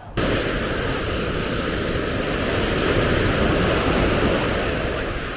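Sea surf washing onto a sandy beach, a dense rush of water noise that starts suddenly, swells to its loudest midway and eases a little toward the end.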